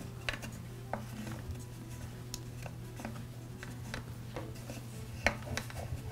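Faint rubbing and light clicks of flexible fuel lines being pulled out through the rubber grommet of an Echo SRM-225 trimmer's plastic fuel tank, with one sharper click about five seconds in, over a low steady hum.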